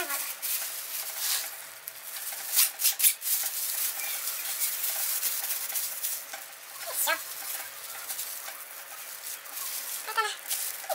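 Thin plastic bags crinkling and rustling as a flat bag of berries, its air pressed out, is handled, knotted and lifted, with a few sharper crackles around three seconds in. Brief pitched, voice-like sounds come twice, about seven and ten seconds in.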